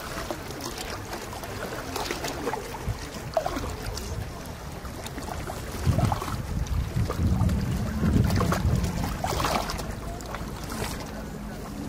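Harbour ambience: a boat's motor drones low, swelling about halfway through, with scattered knocks over a steady background wash.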